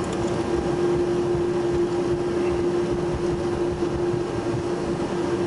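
Cabin noise of a McDonnell Douglas MD-11 rolling out on the runway after landing, ground spoilers deployed: a steady rush of engine and wheel noise with a constant hum.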